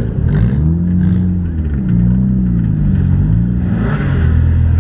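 Demolition derby car's engine revved in a series of rising and falling throttle blips, then holding a steady, even note near the end.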